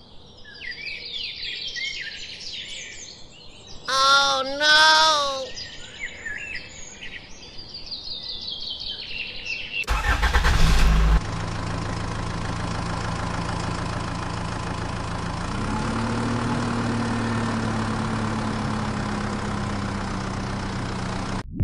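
Birds chirping, and an animal calls twice about four seconds in. About ten seconds in a tractor engine starts with a loud burst, then runs steadily, its pitch rising slightly a few seconds later.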